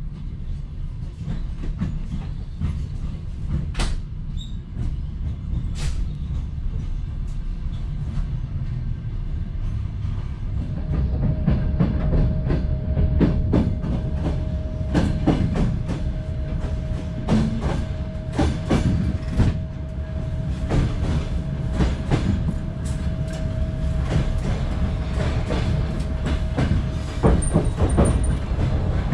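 Ukrainian Railways sleeper carriage running on the track, heard from inside the compartment: a steady low rumble with the clatter of wheels over rail joints and points, which grows denser and louder as the train gathers speed through the yard. About ten seconds in, a steady high-pitched tone joins it and holds on.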